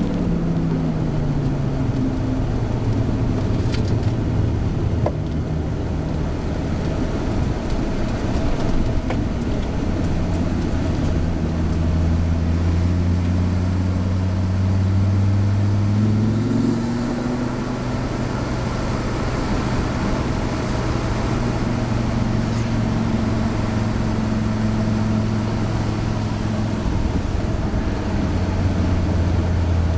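Fiat Coupé 20V Turbo's turbocharged inline five-cylinder engine heard from inside the cabin at gentle, part-throttle pace. The pitch falls at the start, climbs slowly, drops with an upshift about halfway, then holds steady over tyre and road noise.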